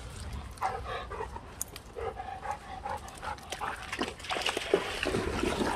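Golden retriever panting in short, quick breaths.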